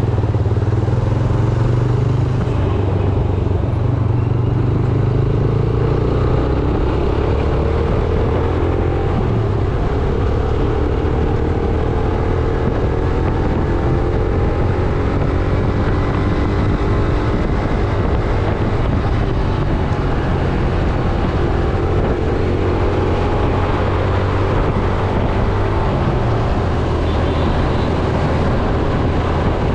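Yamaha YBR 125G's single-cylinder four-stroke engine running while riding through traffic, its pitch slowly rising and falling as the speed changes. A steady rush of wind and road noise lies over it from the chest-mounted camera.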